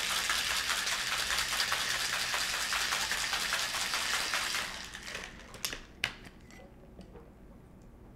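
Ice rattling hard inside a Boston shaker (metal tin capped with a mixing glass) being shaken vigorously. The rattle stops after about four and a half seconds and is followed by two sharp knocks.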